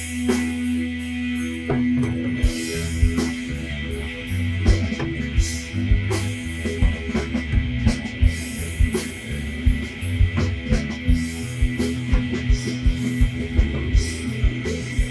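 Background rock-style music with guitar and drums; the drum beat comes in about two seconds in and keeps a steady rhythm.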